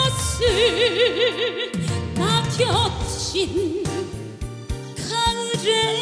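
Female trot singer holding long, wordless sustained notes with a wide, fast vibrato, about four to five wobbles a second, over a live band backing.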